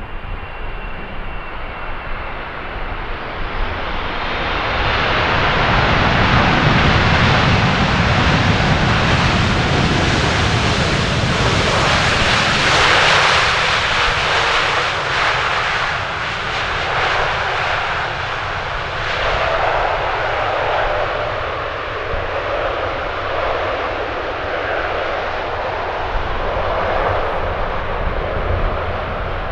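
Jet airliner passing the runway: its engine noise swells over the first few seconds, peaks about halfway through and slowly fades away.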